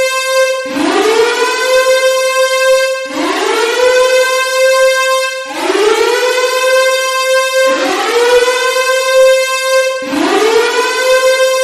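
Nuclear air-raid (civil defense) siren sounding loudly in repeated wails. Each wail rises quickly from a low pitch to a steady high tone, holds, then cuts off and starts again about every two and a half seconds, five times over.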